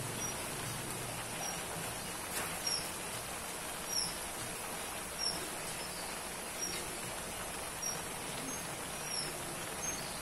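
Outdoor ambience: short, high bird chirps about once a second over a steady hiss, with a constant high insect whine.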